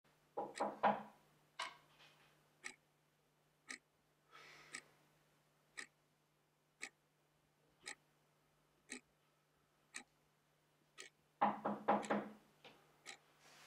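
Clock ticking steadily about once a second over a faint steady hum of room tone. Two brief louder flurries of sound come near the start and near the end.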